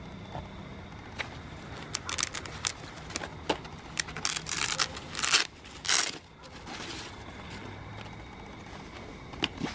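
Rustling and scraping of the loaded Topeak MTX Trunkbag DXP's fabric as hands press and handle it, with scattered sharp clicks; the handling is busiest in the middle few seconds.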